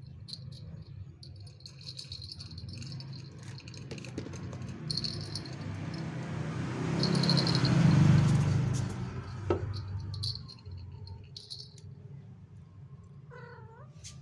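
A small toy ball rattling and jingling in short bursts as a kitten bats it along the floor. A low rumble runs underneath, swelling and fading about halfway through.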